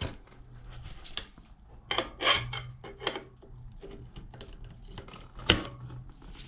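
Metal bead-breaker tool clinking and scraping against a motorcycle wheel rim as it is worked around the tire to break the bead, in scattered knocks with a sharp clack about five and a half seconds in.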